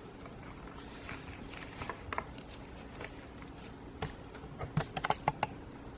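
Light rustling and small clicks from hands handling plants and their pots or packaging, with a quick run of sharp taps and clicks about five seconds in.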